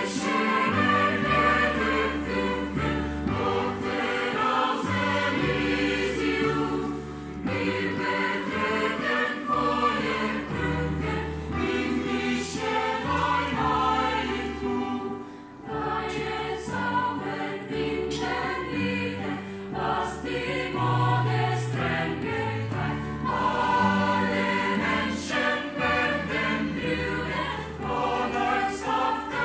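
Mixed choir singing in several parts, over low sustained piano chords.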